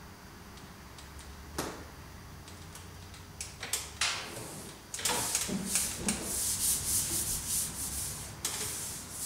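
Hands rubbing and smoothing a printed backdrop sheet flat onto two-sided tape on the boards: dry swishing strokes, louder and repeated from about halfway, with a sharp tap and a few light ticks before them.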